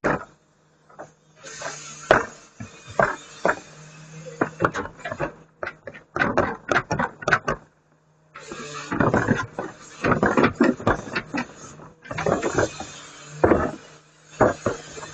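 Garbage truck's engine humming steadily under many sharp cracks and snaps and rustling of yard waste being handled and crushed. The rustling comes in three stretches that start and stop abruptly.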